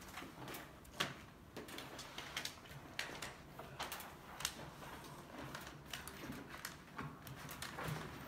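Large sheet of smart film crackling and rustling as it is unrolled and pressed by hand against a glass door, with irregular sharp crackles.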